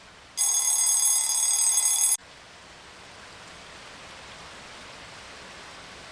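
Steady rain hiss, cut into about half a second in by a loud, bright ringing of many high tones held steady for about two seconds, which starts and stops abruptly.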